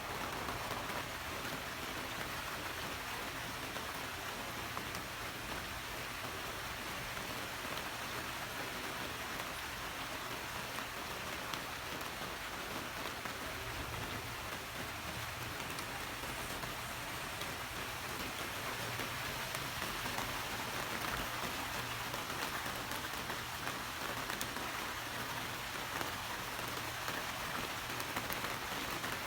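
Steady rain falling, an even hiss without thunderclaps.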